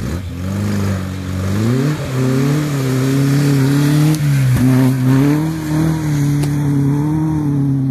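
Engine of a classic open two-seater trials car revving hard as it pulls away across muddy grass: the engine note climbs at the start, rises again about two seconds in, then holds high with small wavers in pitch.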